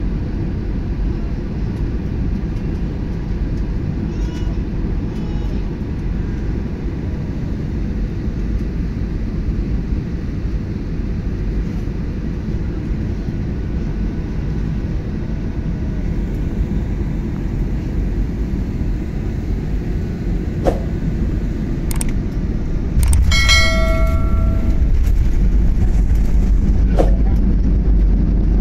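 Jet airliner cabin noise on final approach: a steady low rumble of engines and airflow. About five seconds before the end the noise jumps sharply and stays louder as the plane touches down and the wing spoilers deploy, with a brief whine at the moment of the jump.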